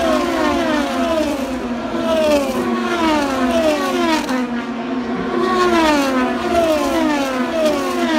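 A pack of race cars streaming past one after another. Each engine note drops in pitch as the car goes by, with the next car following about a second later.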